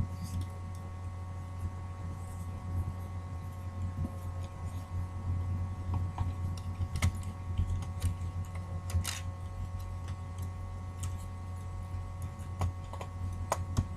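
Steady low electrical hum with a few faint, scattered short clicks and taps.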